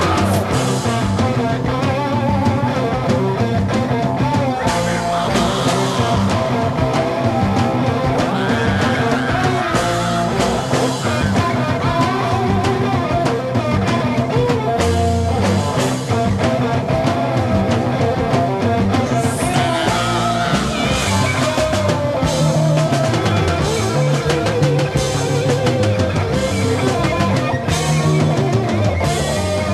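1969 psychedelic rock recording: two electric guitars, bass guitar and drum kit playing a full-band passage at a steady level.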